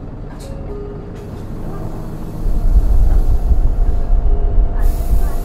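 Inside the cabin of an Isuzu Erga city bus, its 4HK1-TCS four-cylinder turbo diesel running in power mode. It is fairly quiet at first, then about two seconds in the engine opens up and the low drone grows much louder as the bus accelerates hard. Near the end a hiss joins in.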